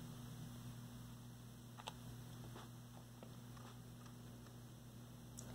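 Near silence: faint room tone with a low steady hum and a few soft ticks, the clearest about two seconds in.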